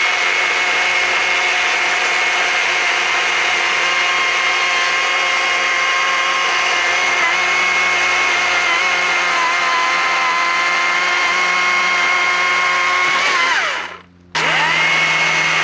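Stihl MSA 140 C battery chainsaw running flat out with a steady high whine from its electric motor and chain as it cuts through an 8-inch ash log, the pitch sagging slightly mid-cut. Near the end the motor winds down and stops for a moment, then spins straight back up to speed.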